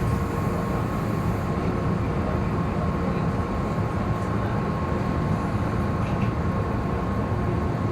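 Steady low rumble inside a halted electric train car, with a thin steady high hum, as typhoon wind and rain buffet the car body.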